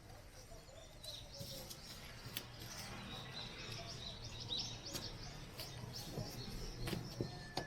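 Birds chirping faintly, with a few soft clicks scattered through.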